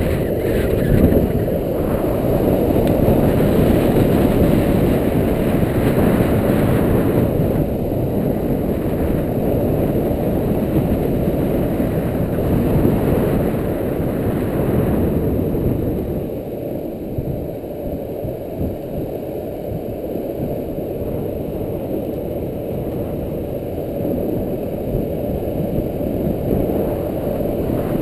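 A longboard rolling fast downhill on asphalt: a steady, dense rush of wheel roar and wind on a GoPro's microphone, a little quieter from about sixteen seconds in.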